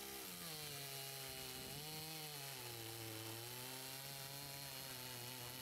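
Makita EA5000P 50cc chainsaw with an 8TEN chain cutting through a stack of 4x4 lumber, heard faintly. The engine runs under load with a steady pitch that sags a little partway through as the cut deepens.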